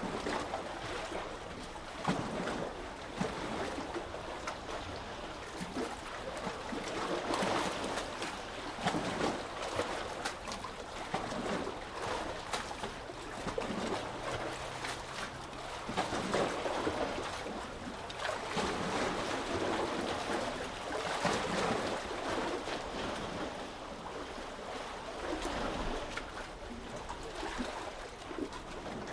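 Small sea waves lapping and splashing, swelling and easing every few seconds.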